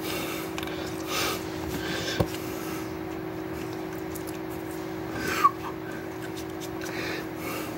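A steady hum at one pitch, with a few faint clicks and rustles and one short sharp tick about five seconds in; the hum stops right at the end.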